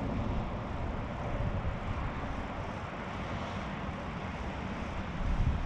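A steady, distant drone of engine noise with no clear tone.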